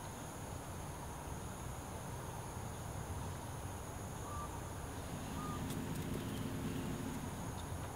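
Outdoor ambience: steady high insect buzzing over a low rumble, with two short high chirps in the middle. A low droning hum rises for a couple of seconds in the second half.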